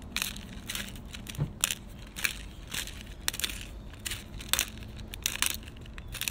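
Hand pepper mill grinding black peppercorns into a jar: a string of short, uneven crunches, about two a second, one with each twist of the mill.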